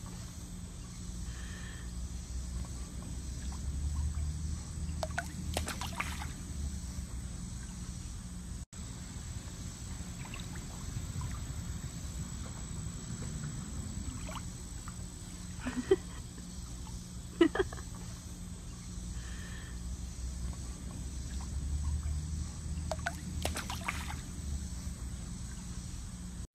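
Pool water gently lapping and sloshing around a wading dog, over a low outdoor rumble, with a few short sharp sounds, the loudest two close together past the middle.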